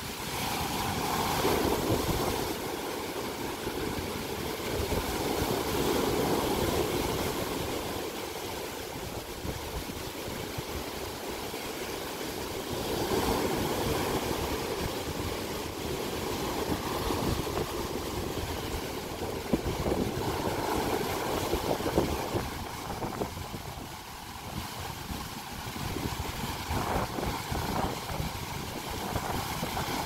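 Storm surf breaking on a rocky beach: waves crash and wash up the sand, swelling and easing every few seconds. Wind buffets the microphone throughout.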